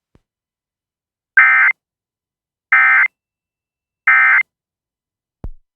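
Emergency Alert System end-of-message code: three short bursts of digital SAME data tones about a second apart, marking the end of the alert. A brief low pop follows near the end.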